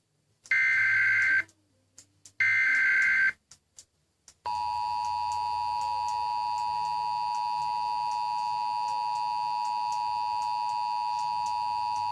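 Emergency Alert System signal. Two bursts of the SAME digital header, each about a second of harsh modem-like data screech, announce the alert. About four seconds in, the EAS two-tone attention signal starts: a steady dual-pitched tone held for about eight seconds that warns a severe thunderstorm watch message is about to be read.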